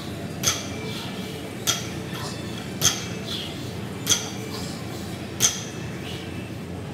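Loaded barbell with bumper plates clinking each time the 300 lb deadlift is set down between reps: five sharp metallic clinks about a second and a quarter apart, over a steady low gym hum.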